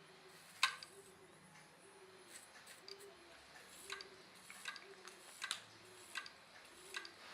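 Opened, non-working Hitachi laptop hard drive under power, its read/write head actuator arm clicking over and over, about once a second, on a faint repeating pulse. This is the repeated seek-and-retry clicking of a failed drive.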